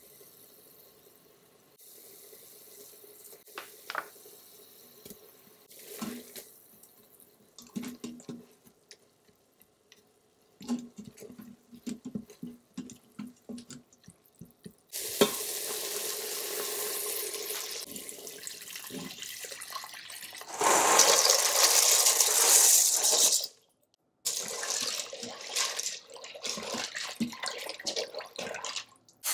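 A silicone spoon stirs and scrapes crumbled sausage in the stainless steel inner pot of an Instant Pot, giving scattered clicks and scrapes. About halfway through, a steady sound of liquid takes over, with stock poured into the hot pot; it is loudest for a few seconds near the three-quarter mark, then stirring resumes.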